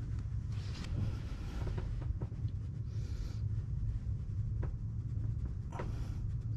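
Scattered clicks and scrapes of a hand tool on metal while a bolt is loosened, over a steady low hum.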